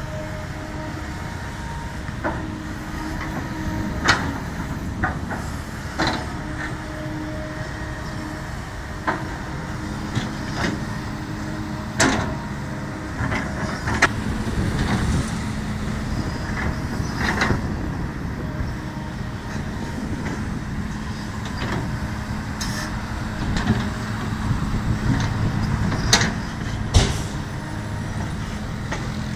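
Kobelco SK200 hydraulic excavator running steadily under work, its diesel engine holding a constant hum with a few steady tones over it. Sharp knocks and clanks come every few seconds, about ten in all.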